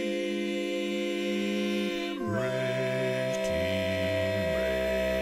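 A male vocal quartet singing a cappella, holding long close-harmony chords. The chord changes about two seconds in, and the bass voice moves and then settles on a low held note near the end.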